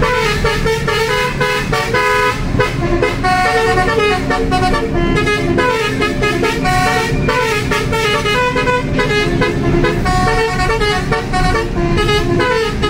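Basuri musical bus horn playing a continuous melody, its air trumpets stepping quickly from note to note, over the steady rumble of the bus running on the road.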